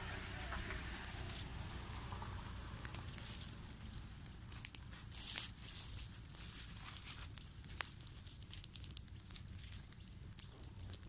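Dry leaves crackling as they burn in a small open fire, with scattered sharp snaps. Dry leaves rustle and crumple as they are pushed onto the fire.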